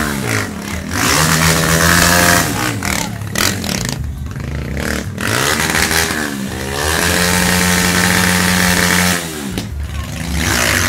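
Small street motorcycle revving under the rider's throttle during a stunt: the engine note climbs and holds high for about a second, drops away, then dips and climbs again past the middle and holds steady for about two seconds before falling near the end.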